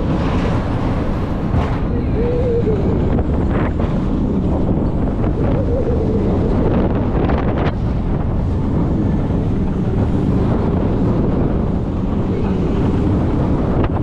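Wind buffeting the microphone over the steady rumble of a Mack Rides Stryker roller coaster train running on its steel track, with a few brief knocks.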